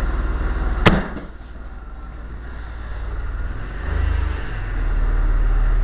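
1996 Chrysler Sebring convertible's engine running at idle in a garage, with a sharp thump about a second in; around four seconds in the engine note swells and settles into a stronger steady hum as the car gets under way.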